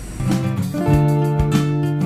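Background music of guitar chords, coming in just after the start.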